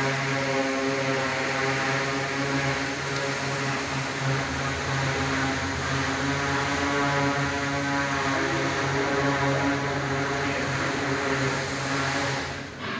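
2000 kVA generator set running at a steady speed, with a constant-pitched engine drone rich in overtones that cuts off abruptly near the end.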